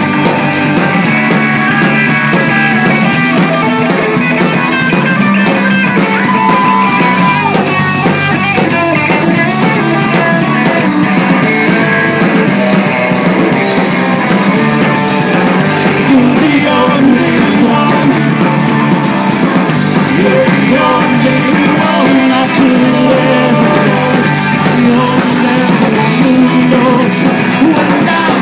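Live rock band playing loudly, with guitar and drum kit.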